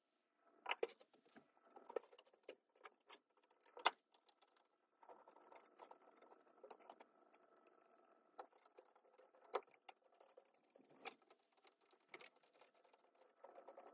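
Faint scattered knocks and clicks of a wooden board being handled and shifted on a workbench with gloved hands.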